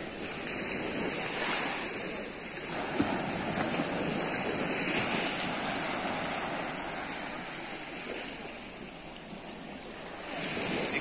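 Small waves breaking and washing up a sandy beach: a steady rush of surf that swells and eases over a few seconds at a time.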